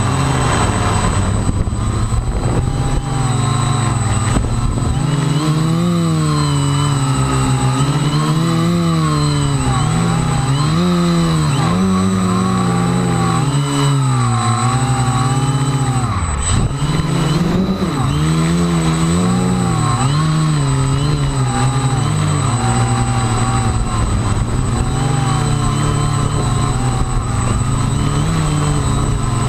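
RC quadcopter's electric motors and propellers whining while it flies in high wind. The pitch swings up and down every second or two as the motors speed up and slow down, with one deep drop in pitch about halfway through.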